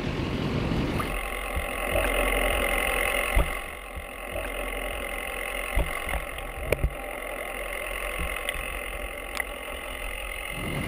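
Underwater sound picked up by a submerged camera: a steady hum of several held tones, crossed by a handful of sharp clicks and knocks, two close together just past the middle. Boat and wind noise from above the water is heard only for the first second.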